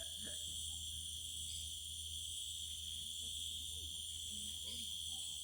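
Cicada singing: a steady, unbroken high-pitched drone.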